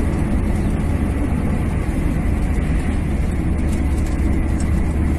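A car being driven, heard from inside the cabin: a steady low rumble of engine and road noise.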